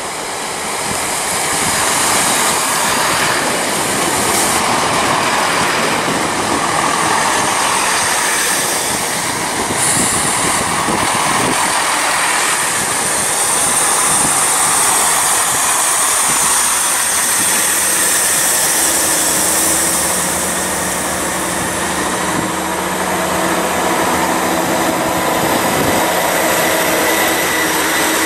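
Great Western Railway Class 166 Turbo diesel multiple unit running past close by, with wheel-on-rail rumble and underfloor diesel engines. From a little past halfway a steady engine hum comes through as it slows.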